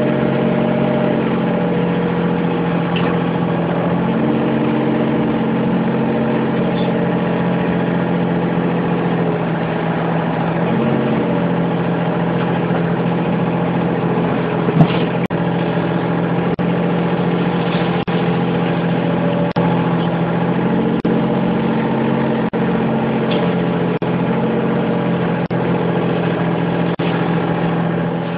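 Hitachi mini excavator's diesel engine running steadily while it digs, its note shifting slightly in steps as the hydraulics take load. A few light clicks and one sharper knock about halfway through.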